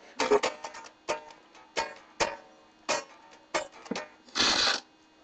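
Stratocaster-style electric guitar strummed in a steady rhythm, a chord struck about every two-thirds of a second, each ringing briefly. Near the end there is a short, loud, noisy rasp.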